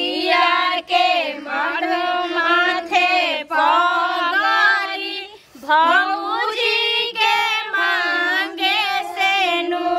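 Women singing a melodic song together in high voices, with a short break about halfway through.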